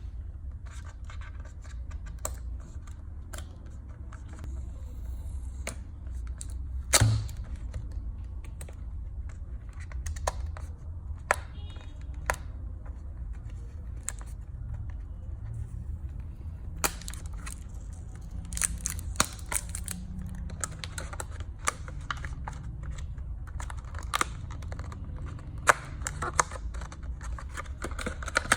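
Packaging being handled and opened by hand: scattered clicks, taps and short scratchy, tearing rustles, with one louder knock about seven seconds in. A steady low hum runs underneath.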